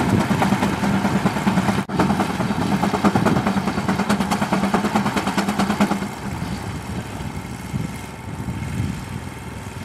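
Vintage farm tractor engine running with a steady beat while pulling a disc plow under load. It grows quieter about six seconds in.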